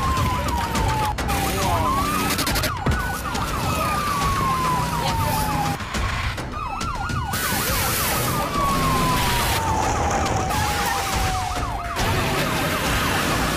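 Emergency-vehicle sirens sounding together: a slow wail that rises and then falls, layered over a fast yelp. The sound breaks off abruptly several times.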